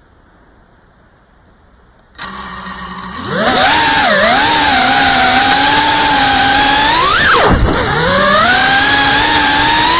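FPV quadcopter's brushless motors spinning up: a low steady hum about two seconds in, then a loud whine whose pitch rises and falls with the throttle. About seven seconds in there is a sharp rising sweep followed by a sudden drop before the whine picks up again.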